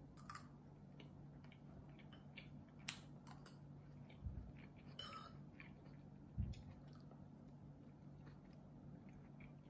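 Quiet eating: a spoon clicking faintly against a ceramic bowl now and then, with soft chewing, over a steady low hum. Two soft low thumps come about four and six and a half seconds in.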